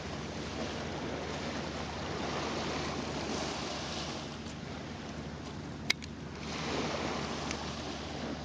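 Shallow water washing and lapping on sand at the water's edge, swelling and easing in slow surges. A single sharp click sounds about six seconds in.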